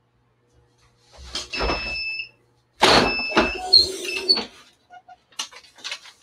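Heat press timer beeping with a high steady tone as the 60-second press ends, then a loud clunk and rattle as the upper heat platen is released and lifted open. Light taps and rustles of the protective paper over the towel follow.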